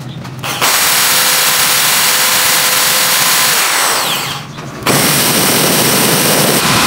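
Electric drill boring through a plastic switch base into a steel bracket, in two runs: the first winds down a little before the middle, and after a short pause the drill starts again.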